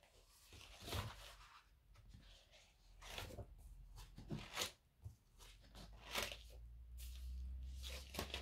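Quiet room with faint, scattered rustles and soft clicks of small handling movements, and a low hum that grows louder near the end.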